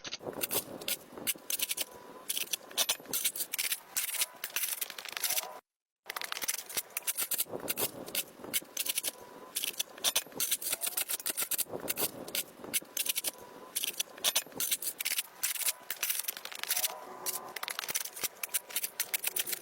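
Dense, irregular crackling clicks and scrapes of overgrown grass, roots and vines being cut and torn out by hand, cutting out for a moment about six seconds in.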